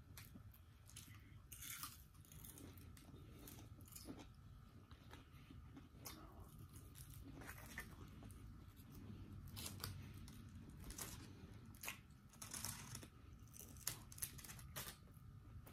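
Faint close-up chewing and crunching of crisp fried battered food, with scattered short crackles as pieces are bitten and pulled apart.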